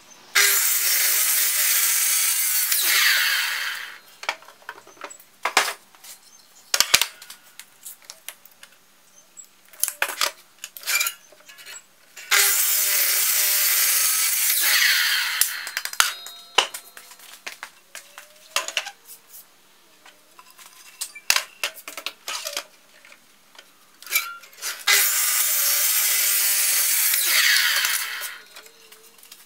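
A Makita sliding miter saw cutting through laminated hardwood cutting-board blanks, three cuts of about three and a half seconds each, the motor's pitch falling as it winds down at the end of each cut. Between the cuts come knocks and clatter of the boards being handled on the saw table.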